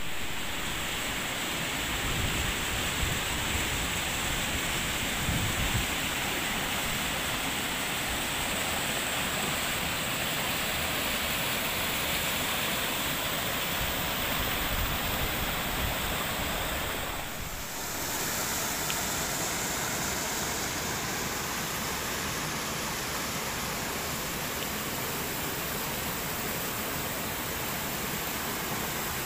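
Shallow river water rushing over boulders and small rapids, a steady hiss of flowing water that dips briefly about seventeen seconds in.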